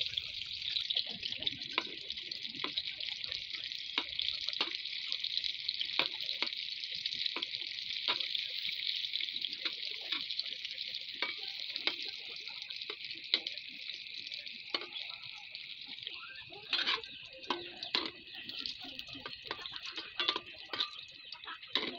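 Hotdogs sizzling in hot oil in a metal wok, a steady hiss, while a metal spatula scrapes and taps against the pan in short clicks as they are turned. The clicks come more often over the last few seconds.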